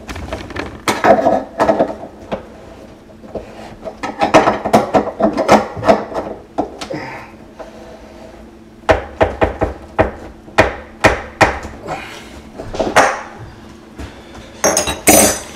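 Sink drain wrench knocking and scraping against the basket strainer's locknut as it is tightened from below, in several bursts of quick, sharp knocks.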